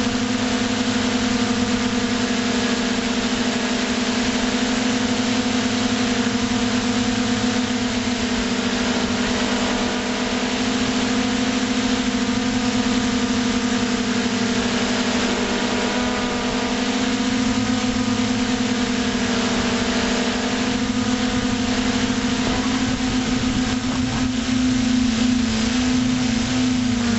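Electric motors and propellers of an FPV drone in flight, heard from its onboard camera: a steady, loud hum whose pitch drifts slightly with throttle, a little louder and unsteadier near the end.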